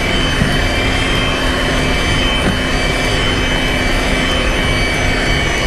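Electric hand mixer running steadily at a constant pitch, its beaters whisking whipped egg-and-sugar sponge cake batter as sifted flour is poured in.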